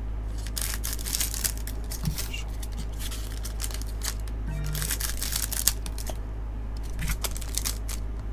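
Crinkling and tearing of a 2024 Topps Pro Debut baseball card pack's wrapper as it is handled and opened by hand: a run of short, irregular crackles over a steady low hum.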